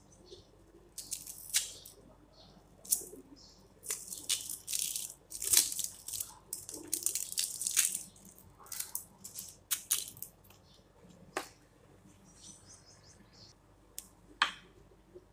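Dry papery skin of a red onion crackling and tearing as it is peeled with a small knife, in irregular crisp rustles. A couple of sharp clicks near the end.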